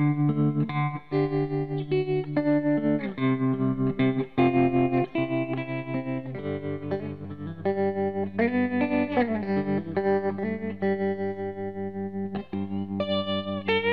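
Background music: a solo guitar plays a melody of picked notes over held low notes, bending notes up and down about halfway through.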